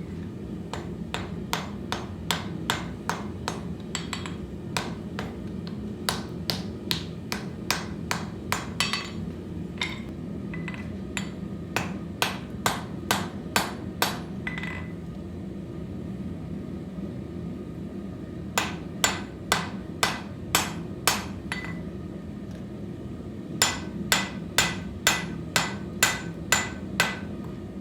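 Blacksmith's hand hammer striking steel on an anvil while forging, about three blows a second, in four runs separated by short pauses. A steady low hum runs underneath.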